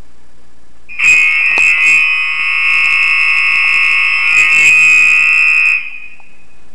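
Apartment building fire alarm horn sounding during a test: one loud, steady, high-pitched blast of about five seconds that starts a second in and cuts off suddenly.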